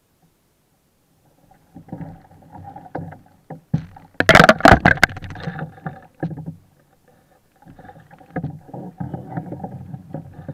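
Water splashing and sharp knocks against a kayak as a hooked amberjack is reeled to the side and hauled aboard. The splashing and knocking are loudest about four seconds in.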